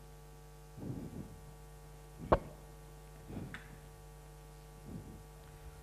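Steady electrical hum from the sound system, with one sharp click a little over two seconds in and a few faint, brief low murmurs.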